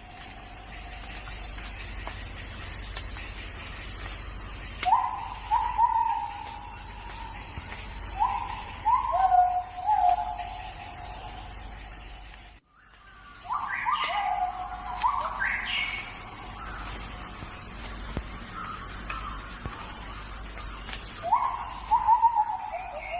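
Tropical forest ambience: a steady, high insect drone of cicadas or crickets, with a bird calling in short phrases of notes that step down in pitch, repeated several times. The sound cuts out abruptly for a moment about halfway through.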